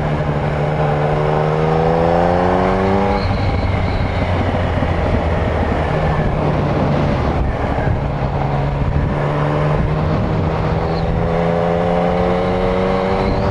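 Yamaha MT-09 motorcycle's three-cylinder engine pulling under way, with wind noise on the microphone. Its note rises steadily for about three seconds and then breaks off. It comes back and climbs slowly again through the second half.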